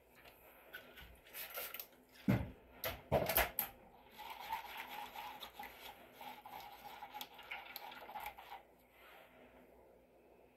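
Plastic pouring cups and a spoon handled on a tabletop: a few sharp knocks and clatters in the first few seconds, then about four seconds of rapid scraping, a spoon stirring melted melt-and-pour soap in a plastic cup.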